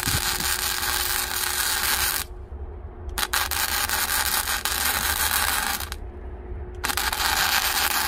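Electric arc welding on steel: three stretches of crackling, hissing arc, with the arc breaking off for about a second twice, once around two seconds in and again around six seconds in.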